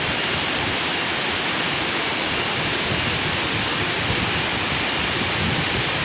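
Waterfall with several streams pouring down a rock face into a pool, a steady rushing of water.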